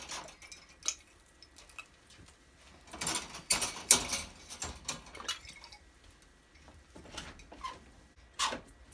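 Clinks and rattles of a hanging water bottle being unhooked from a wire guinea pig cage, in a cluster about three to five seconds in and again near the end.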